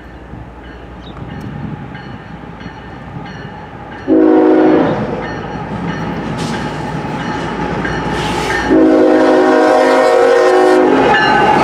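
Horn of a GE ES44AC diesel locomotive sounding a short blast about four seconds in and a long blast near the end, the close of the grade-crossing horn signal. A crossing bell rings in quick regular strokes early on, and the locomotive's rumble grows louder as it approaches.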